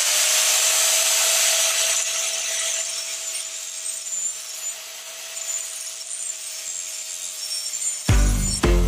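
Angle grinder sharpening a steel lawn mower blade held in a vise: a steady high grinding hiss over the grinder motor's whine, which holds one pitch after spinning up. About 8 seconds in the grinding stops and guitar music starts.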